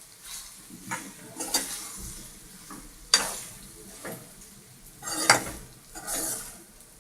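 A spoon stirring cooking vegetables in a pan, scraping against the pan several times over a light sizzle.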